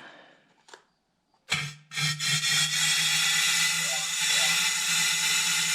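Compressed-air blowgun blasting out the fuel tank of a Honda GCV160 small engine to clear rust and water-contaminated debris. A short puff about a second and a half in, then a steady loud hiss with a low hum underneath that holds for about four seconds.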